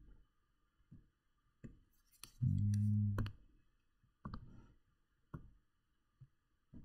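Scattered sharp clicks of a mouse or stylus on a computer while a shape is chosen from a drawing program's menu. A short, low, steady hum about two and a half seconds in is the loudest sound.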